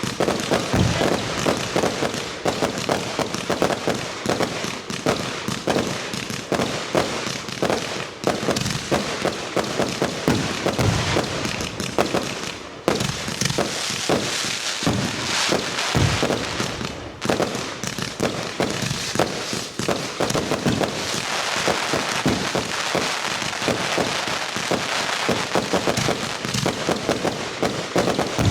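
Fireworks going off in rapid, continuous succession: a dense barrage of bangs and crackling with no real pause.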